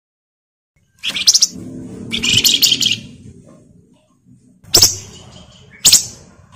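Wergan Jawa (Javan fulvetta, the 'flamboyan' songbird) singing in short bursts of high, quick notes: one burst about a second in, a fast run of notes soon after, then two brief sharp bursts near the end.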